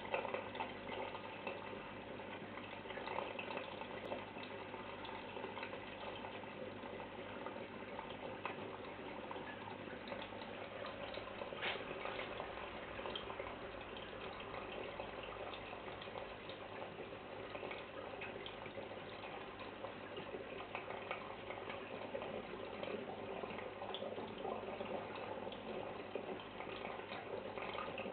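Aquarium water circulating, heard from inside the tank: a steady rushing and fine crackling of moving water over a constant low hum.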